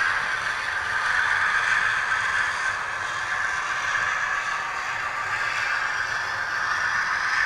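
Model diesel locomotives, among them a Heljan Class 52 Western, running along the layout's track with a steady scraping whirr of motors and wheels on rail.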